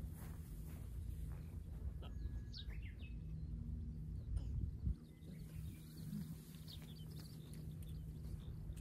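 Outdoor ambience of wind buffeting the microphone as a low rumble, with a steady low hum and a few short bird chirps about two to three seconds in. A brief thump comes about five seconds in.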